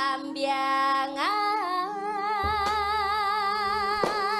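A woman singing in Javanese through a microphone and PA, holding long notes with a wide vibrato over low held accompaniment notes, ending on the word "Blambangan".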